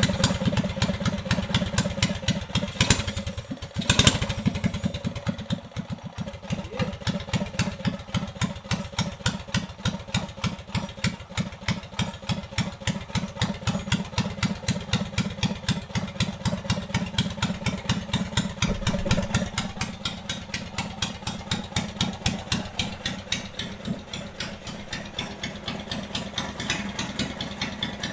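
Straight-piped 340cc single-cylinder big-block engine idling on choke just after its first start on a newly fitted 34mm flat-slide carburettor, each firing stroke distinct and even. Two sharp cracks about three and four seconds in.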